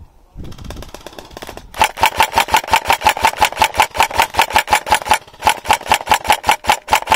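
Airsoft electric rifle firing on full auto: a fast, even rattle of about eight shots a second that starts about two seconds in, with a short break past the middle. Fainter rapid clicking comes before it.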